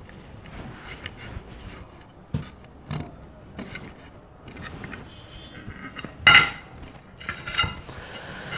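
Hand-held wheel glass-tile cutter scraping and clicking along a glass tile strip as it scores it, with a few sharp knocks. About six seconds in the tile snaps along the score with a sharp crack that rings briefly.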